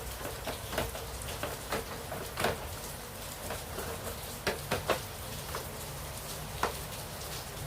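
Scattered light clicks and knocks of an LED TV's parts being handled and fitted back together, over a steady background hiss.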